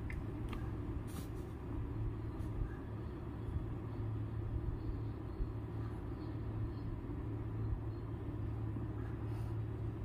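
Steady low hum and rumble of background noise, with a couple of faint clicks about a second in.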